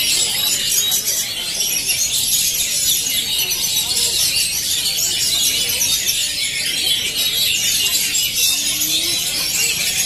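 A dense chorus of many caged oriental magpie-robins (kacer) singing at once, a steady tangle of high, fast, overlapping phrases.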